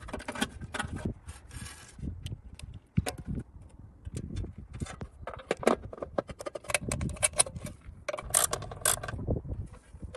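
Irregular metallic clinks, taps and scrapes of tools and metal parts being handled, with a brief hissing scrape about one and a half seconds in and a denser run of clicks near the end.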